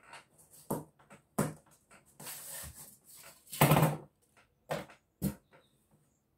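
Handling noises on a wooden cutting table: several short knocks and clatters as a pair of scissors and a plastic pattern ruler are moved and set down, with fabric rustling and scraping. The loudest is a longer scrape just past the middle.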